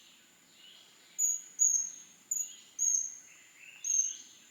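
A small bird calling: about five short, high-pitched notes, each dipping in pitch at its end, over a faint steady high whine.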